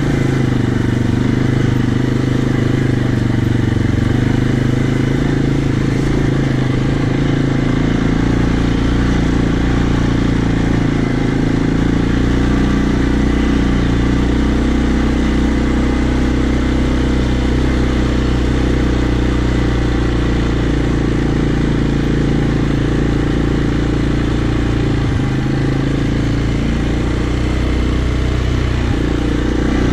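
Quad (ATV) engine running steadily in low gear as it is ridden along, with an even pitch that does not rise or fall.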